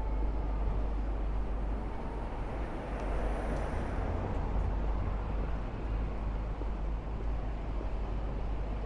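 City street traffic: a steady mix of passing vehicles with a deep low rumble underneath.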